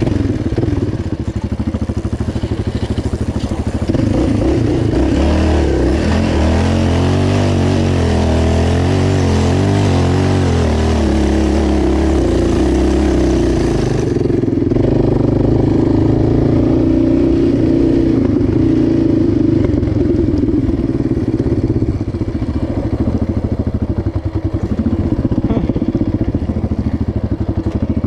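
Yamaha Raptor 700 quad's single-cylinder four-stroke engine running under way on a rough dirt track, its pitch rising and falling with the throttle. A high hiss above the engine cuts off suddenly about halfway through.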